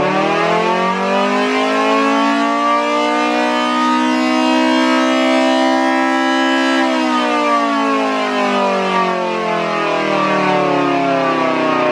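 Outdoor warning siren sounding: its pitch climbs steadily to a peak about seven seconds in, then glides steadily down.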